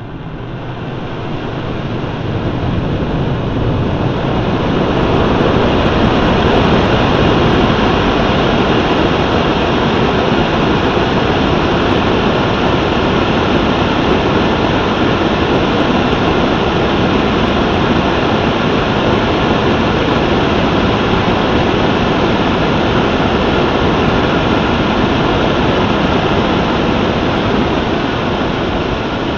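Solid-fuel model rocket engine burning: a steady rushing exhaust noise with no distinct tones, swelling over the first five seconds or so and then holding level.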